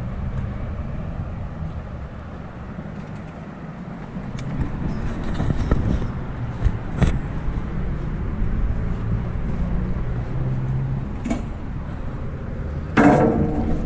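Steady low rumble of city traffic far below, with a faint engine hum in it. A few sharp knocks come through, and a short louder sound shortly before the end.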